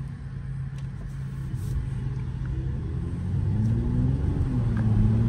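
Mercedes-AMG GLE 53's turbocharged inline-six running at cruise, heard from the cabin with the windows down, then building as the car accelerates about three and a half seconds in.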